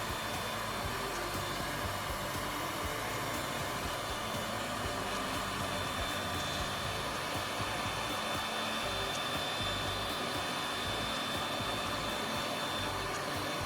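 Electric hot-air blower running steadily, a rushing blow with a faint high whine that fades out near the end.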